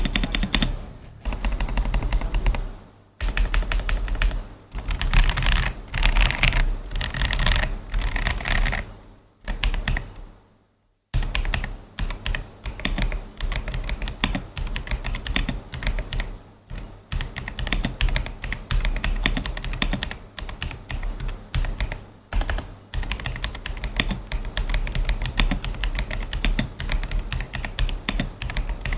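Ajazz AK820 V2 mechanical keyboard with its stock yellow tactile switches being typed on: fast keystroke clacking in bursts, a brief break about ten seconds in, then steady continuous typing.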